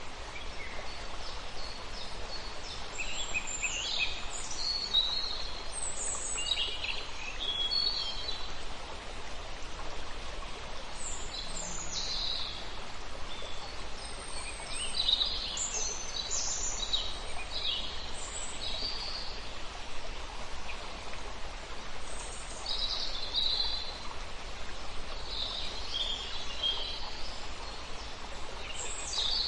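A small forest stream running steadily, with songbirds calling over it in short chirps and warbling phrases that come and go in clusters.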